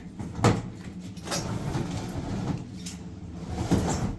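Three sharp knocks over a steady low hum: one about half a second in, a fainter one a little later, and another near the end.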